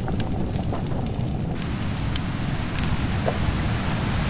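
Wood fire crackling under a cooking pot on a stone hearth: scattered sharp pops over a steady, loud, low rushing noise that turns hissier about a second and a half in.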